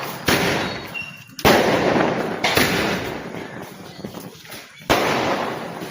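Diwali firecrackers going off: four sharp bangs at irregular intervals of one to two and a half seconds, each trailing off over about a second.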